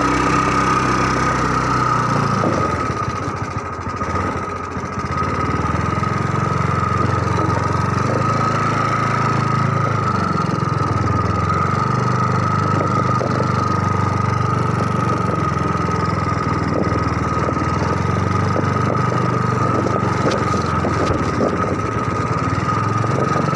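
Small engine running continuously, its low pitch wavering up and down as the revs change, with a steady high whine over it.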